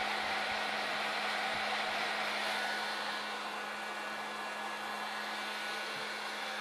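Modified West Bend Poppery hot-air popcorn popper roasting coffee beans: its blower runs steadily, a rush of hot air with a low hum, easing slightly about halfway through. The beans are at the light-cinnamon stage and have not reached first crack.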